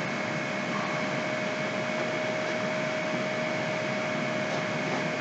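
Steady background hiss of room and microphone noise, carrying a faint steady tone throughout, with no other sounds.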